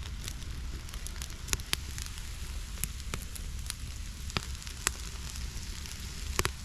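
Campfire burning, a steady hiss broken by irregular sharp crackles and pops.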